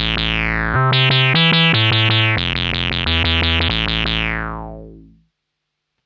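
Modal Cobalt 8 virtual-analogue synthesizer playing a preset: a held low chord, then about a second in a quick run of plucky notes, each with its filter closing downward. The sound fades away about five seconds in.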